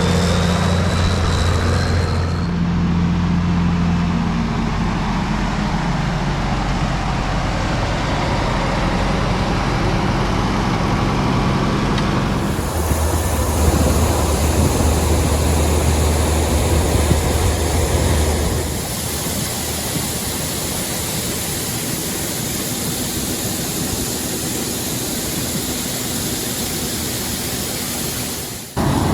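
Farm machinery running in a harvest field: a steady low engine hum with broad mechanical noise. The sound changes abruptly several times, as if cut between different machines or vantage points.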